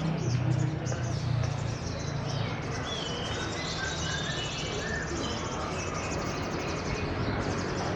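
Caged songbirds, among them a sogon, singing: short whistled phrases and rapid high chirping, over a low murmur of crowd voices.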